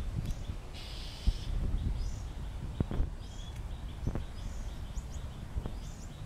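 Outdoor ambience picked up by a Samsung Galaxy S8+ phone microphone: small birds chirping in short, repeated calls over a steady low rumble, with a few soft thumps.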